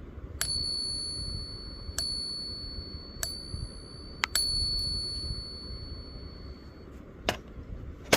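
Silver coins being pinged: four taps, each followed by a high, clear ring that fades slowly over a second or more. This sustained ping is what marks genuine silver. Near the end comes one short click with no ring.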